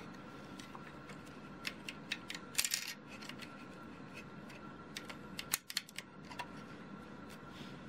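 Lego plastic pieces clicking and tapping as they are pressed onto a model: a few faint, scattered light clicks, with a small cluster a little under a third of the way in.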